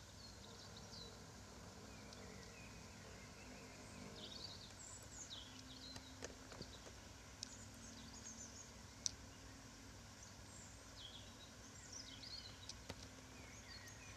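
Faint birdsong: scattered short chirps from small birds over a faint steady low hum, with a few sharp clicks, the loudest about nine seconds in.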